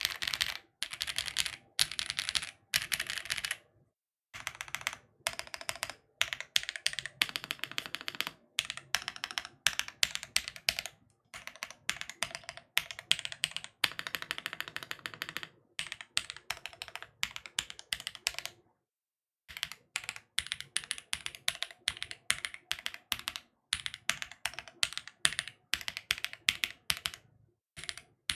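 Rapid typing on a Bubble75 custom mechanical keyboard with lubed linear switches, a polycarbonate plate, plate foam and GMK keycaps. The keystrokes come in bursts of one to several seconds, separated by short pauses, with a longer break about two thirds of the way through.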